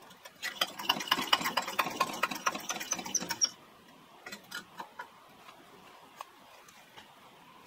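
Fuel tank of a vintage Coleman 425C two-burner camp stove being hand-pumped to pressurise it: a quick run of squeaky, clicking pump strokes for about three and a half seconds, then a few scattered clicks.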